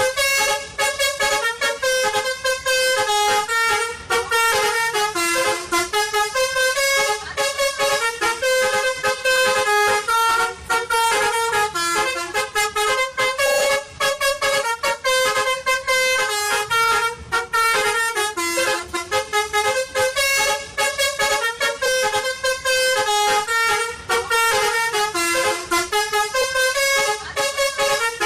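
A bright electronic tune in a horn-like tone, playing quick stepping notes in a repeating pattern.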